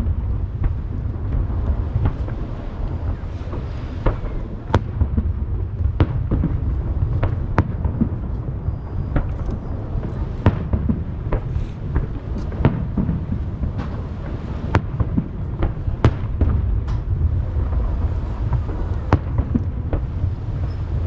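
Fireworks display over the sea: aerial shells bursting in a rapid, irregular series of sharp bangs over a steady low rumble.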